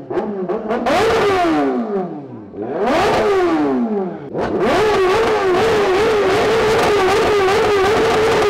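Superbike engine revved hard twice, each time the revs shooting up and falling back, then taken up again and held high and steady, wavering slightly.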